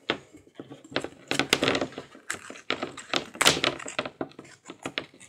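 A blade cutting and tearing the foam surround of a blown 4-ohm Philips computer speaker, heard as irregular scraping and ripping with sharp clicks and taps as the speaker is handled.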